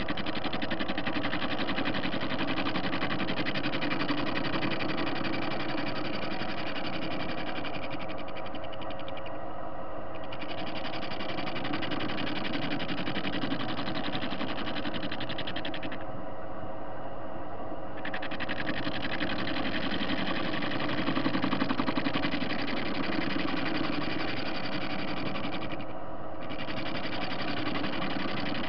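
Soviet TV-16 lathe running, a steady machine hum with a high-pitched hiss that drops out briefly three times.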